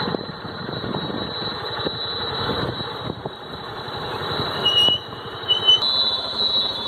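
Vehicle engine and road noise while driving, steady, with a brief high squeal about five seconds in.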